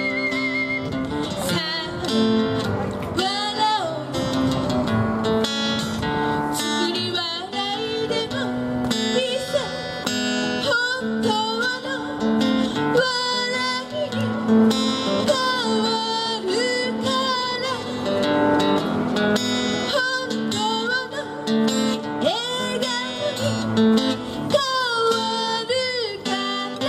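Live acoustic duo: a steel-string acoustic guitar strums chords under a woman's singing voice. About a second in, a held ocarina note with a wavering pitch ends, and the singing takes over.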